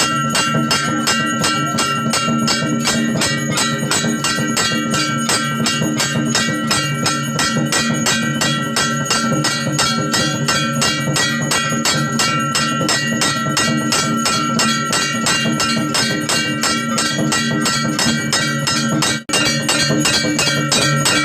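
Music with held tones over a steady, fast beat, cutting out for an instant near the end.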